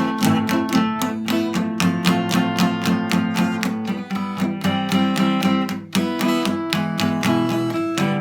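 Acoustic guitar strummed in a steady rhythm, chords ringing, with no singing.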